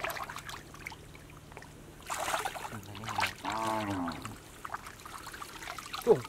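Muddy shallow water sloshing and trickling as a mosquito net is dragged through it, with a short louder splash about two seconds in. A person's voice is heard briefly after the splash.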